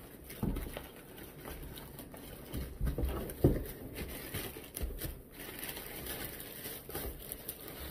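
Plastic poly mailer crinkling and tearing as it is ripped open by hand and pulled off a cardboard shoebox, in irregular rustles with the loudest one about three and a half seconds in.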